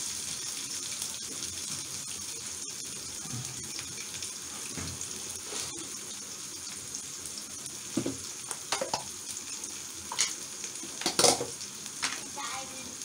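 Chopped onion, garlic and green chillies sizzling in hot oil in an aluminium kadai, a steady hiss. From about eight seconds in come a few short knocks and clatters of kitchenware, the loudest near the end.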